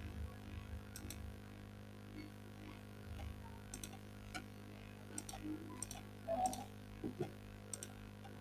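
Computer mouse clicks: several short, sharp clicks scattered a second or so apart, a few in quick pairs, over a steady low hum.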